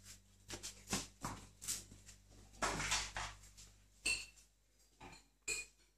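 A cat chasing and batting a small plastic ball across a tiled floor: irregular clicks and knocks as the ball hits and skitters over the tiles, with a longer scuffle of paws about halfway through.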